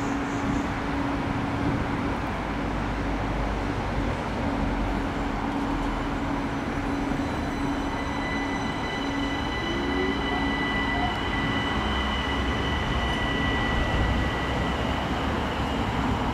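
Train running on the track: a steady rumble with a low hum throughout. From about eight seconds in, faint high thin whining tones come in for several seconds.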